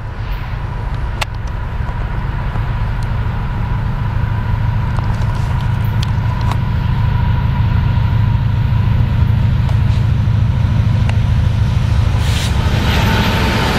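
Approaching BNSF freight train, its diesel-electric locomotives giving a low rumble that grows steadily louder as the lead unit closes in. Near the end, higher wheel and rail noise rises as the engines near.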